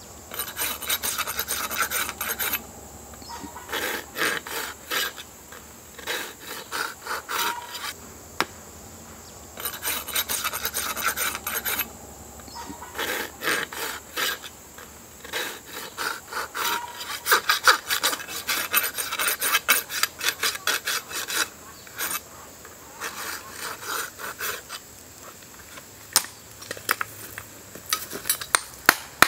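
Farrier's rasp filing a horse's hoof in quick back-and-forth strokes, in runs of a few seconds broken by short pauses. A few sharp taps come near the end.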